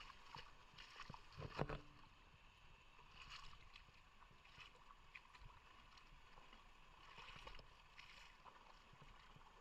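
Faint river water running, a soft steady rush that swells a little now and then, with one low knock about one and a half seconds in.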